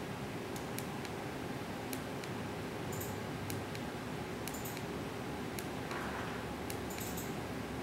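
Faint, scattered light clicks and a few brief rustles from a smartphone being handled in cloth gloves, over steady room hiss.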